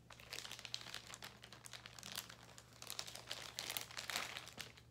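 Crinkling and rustling as a lot of earrings and its wrapping are handled, a run of small irregular crackles and clicks.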